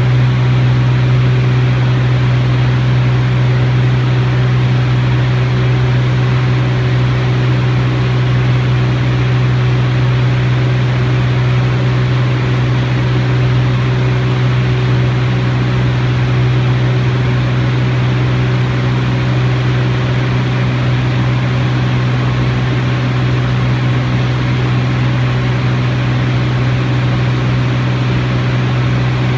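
T-34 Mentor piston engine and propeller droning steadily, holding one even pitch without rising or falling.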